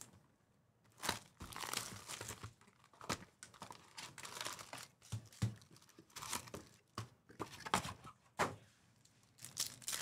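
Foil trading-card pack wrappers crinkling and rustling in the hands, in short irregular bursts, as packs are taken from a cardboard hobby box and one is torn open near the end.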